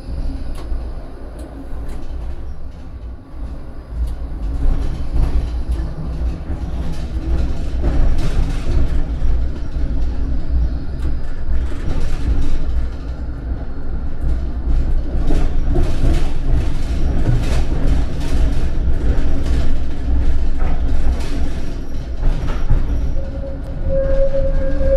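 Vario LF2+ tram running on its rails: a steady low rumble with repeated clicks of the wheels over the track. A steady pitched tone comes in near the end.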